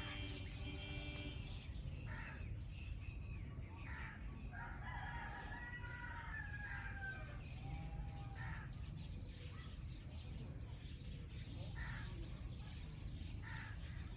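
A rooster crows: one long call of about three seconds near the middle, after a shorter call at the start. Short chirps of other birds come and go over a steady low rumble.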